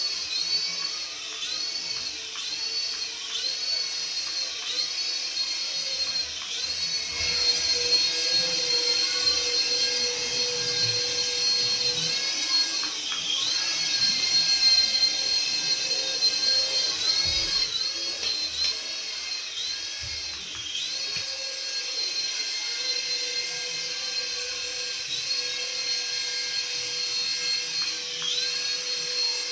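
Small electric motor of a remote-control toy running with a high whine, its pitch dipping and recovering over and over as the throttle is worked.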